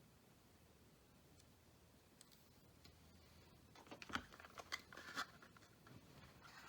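Near silence, then about four seconds in a second and a half of quiet clicks and crinkling as packaging and small parts are handled, with a few faint clicks near the end.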